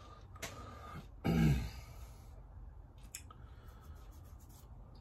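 A man clears his throat once, a short low sound about a second in, with a few faint clicks later.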